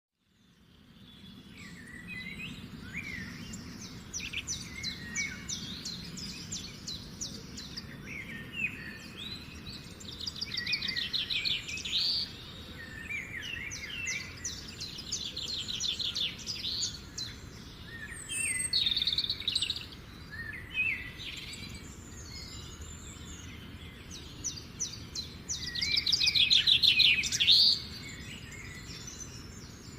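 Birdsong: several birds chirping, with rapid trills every few seconds, the loudest one near the end, over a faint steady background noise.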